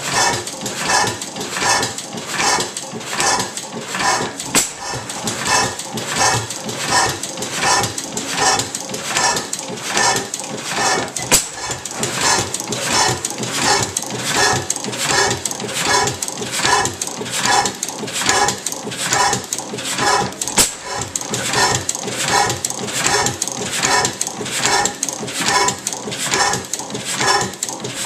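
6 HP Otto sideshaft hit-and-miss gas engine running, with a steady clacking beat of about one and a half to two a second. A few louder, sharper knocks stand out from the beat.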